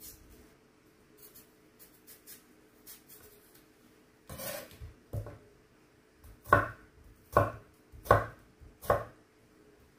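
Kitchen knife cutting a peeled fruit on a wooden cutting board: quiet scraping of peeling at first, then four sharp chops about a second apart through the fruit into the board in the second half.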